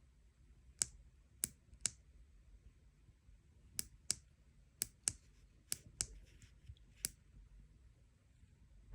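Buttons on a RainPoint digital water flow meter clicking about ten times at irregular intervals, pressed over and over to change its settings.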